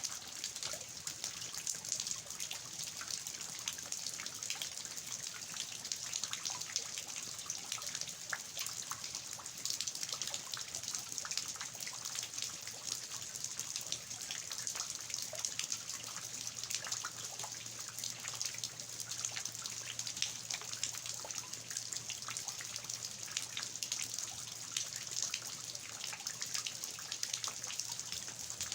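Steady rain with water dripping and splashing down from the eaves: an even hiss dotted with countless small drop ticks.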